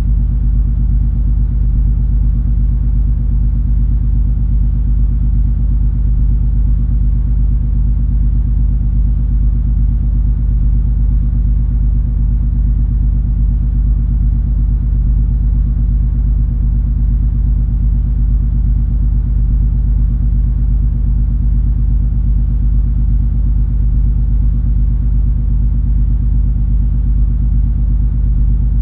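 Steady low drone of the cruise ferry MS Color Fantasy's engines under way, heard aboard: an unchanging deep rumble with several steady hum tones and little in the higher range.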